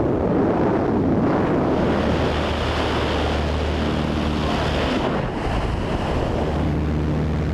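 Loud wind rushing over the camera microphone in skydiving freefall, a steady noisy roar. A steady low drone joins about halfway through.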